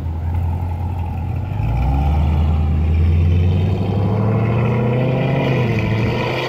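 C7 Chevrolet Corvette's V8 accelerating away. The engine note climbs in pitch for several seconds, then drops back near the end as it shifts up.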